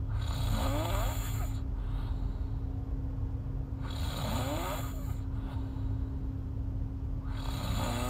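A woman snoring in her sleep, mouth open: three long snores about every four seconds, each rising in pitch as it goes.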